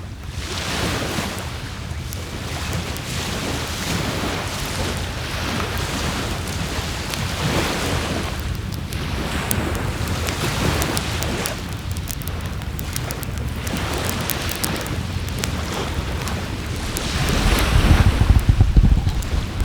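Waves washing onto the shore in slow swells, with a wood fire crackling and popping in short sharp snaps. Low wind rumble on the microphone near the end.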